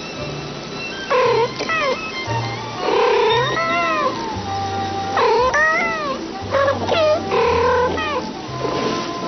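Two domestic cats trading short meows back and forth, about six calls, each rising and falling in pitch, over background music with a low bass line.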